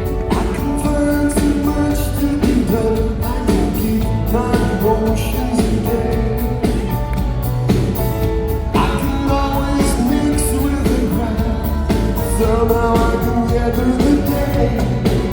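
Live pop-rock band playing with a steady drum beat and a male lead vocal, the singing coming in more strongly about halfway through.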